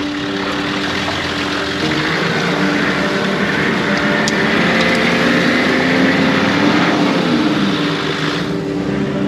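Off-road 4x4 driving with its engine running. A rush of tyre and ground noise swells for several seconds and drops away near the end, and the engine pitch rises and falls briefly partway through.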